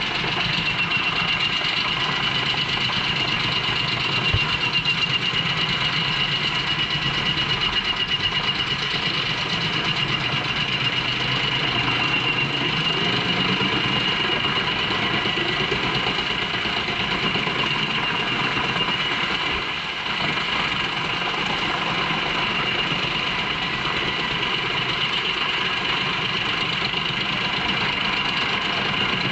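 JENZ HEM 593-R truck-mounted drum chipper running under load, chipping poplar trunks fed in by its crane: a steady machine drone with a high whine over it. A single knock sounds about four seconds in, and the level dips briefly past the middle.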